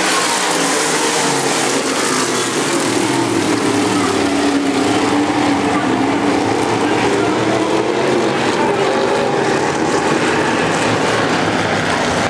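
A pack of semi-late model race cars running hard around the oval, their V8 engines at high revs and rising and falling in pitch as the cars go round.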